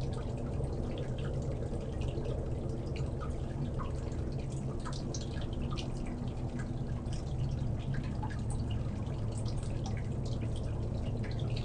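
Water dripping and trickling in scattered irregular drops over a steady low hum.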